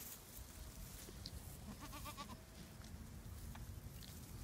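A goat bleats once about two seconds in: a short, quavering bleat lasting about half a second.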